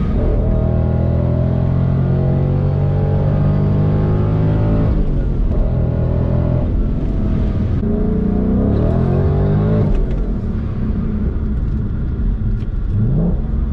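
Centrifugally supercharged Ford Mustang GT 5.0 V8 accelerating hard, heard from inside the cabin. The revs climb and break about five seconds in and again around seven to eight seconds as the car goes up through the gears, then the engine eases off about ten seconds in.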